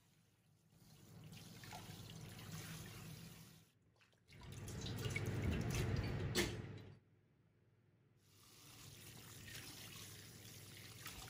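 Tap water running into a stainless steel bowl as hands rub and rinse raw beef tripe and offal under it. It comes in three short stretches with silent breaks between them, the middle stretch the loudest.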